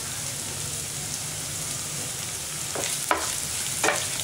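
Chopped onion, green chillies and ginger-garlic sizzling steadily in hot oil in a nonstick frying pan. From about three seconds in, a wooden spatula stirs them, scraping across the pan a few times.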